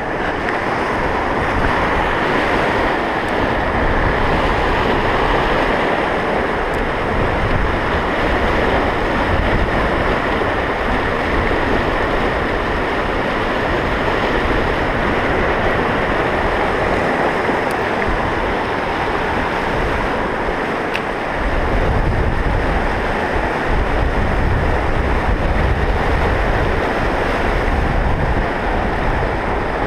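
Whitewater rapids of a fast mountain river rushing steadily and loudly, with wind buffeting the microphone, heavier in the last third.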